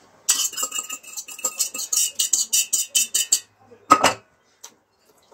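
A metal fork scraping and tapping quickly against the inside of a stainless steel pot, about five strokes a second, to get the blanched spinach out. This is followed by a single loud knock about four seconds in.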